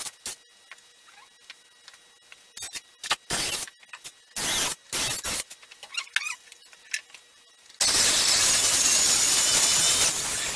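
Scattered knocks and clatter of cedar log pieces being handled, then about eight seconds in a corded electric drill runs for about two seconds, boring into a cedar log.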